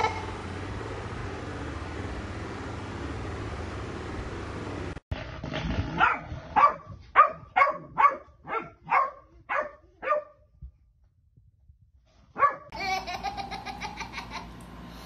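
Golden retriever barking: about nine short barks, roughly two a second, starting about five seconds in, after a few seconds of steady hiss.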